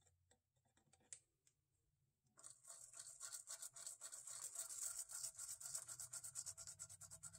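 A small brush wet with alcohol scrubbing the solder side of a printed circuit board in quick back-and-forth strokes, starting about two and a half seconds in, to wash off solder flux. Before that, a few faint clicks of handling.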